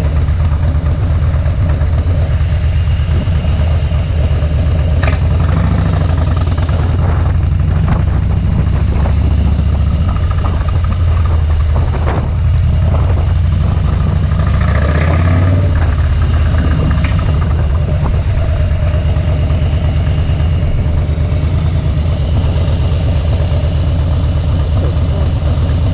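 2013 Harley-Davidson Softail Deluxe's V-twin engine running steadily through Vance & Hines Straight Shots slip-on mufflers, a deep low exhaust note with a short change in engine pitch about halfway through.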